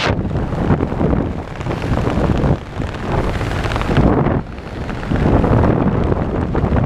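Wind rushing over a camera microphone carried under an open parachute canopy: a rough, loud rush that drops off briefly a couple of times, with no engine heard.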